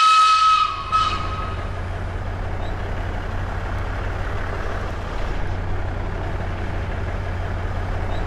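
A train whistle ends about half a second in, with a short second toot about a second in. After that a diesel locomotive engine runs with a steady low rumble.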